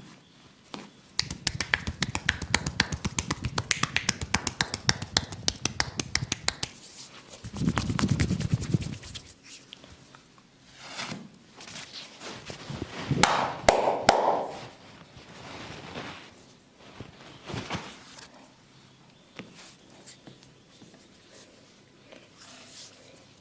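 Massage hand-tapping on the body: a fast, even run of sharp slaps for about six seconds, then a low rubbing rumble, then a few sharp snaps or cracks near the middle.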